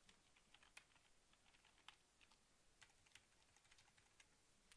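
Faint computer keyboard typing: irregular light key clicks.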